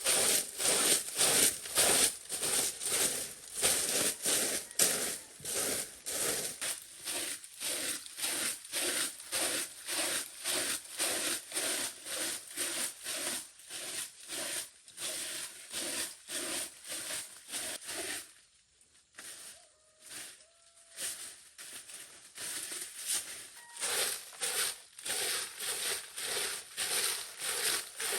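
Hand saw cutting, with rhythmic rasping back-and-forth strokes about two to three a second and a brief pause about two-thirds of the way through.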